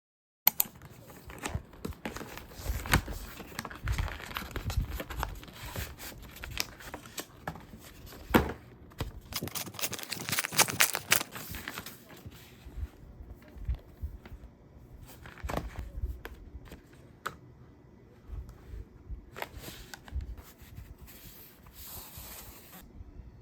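Packaging being handled and opened by hand: paper or plastic rustling and crinkling, with scattered taps and clicks and a longer stretch of tearing or rustling about ten seconds in.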